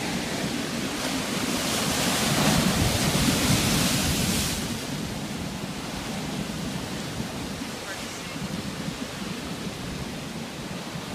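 Ocean surf breaking and washing over shoreline rocks, a steady rushing hiss of foam. A bigger wave surges louder from about a second and a half in and falls back after about four and a half seconds, leaving the lower swirl of water among the rocks.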